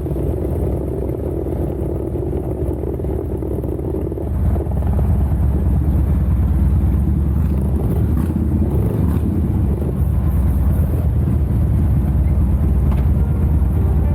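Harley-Davidson Dyna's V-twin engine running with a steady low rumble, getting louder about four and a half seconds in.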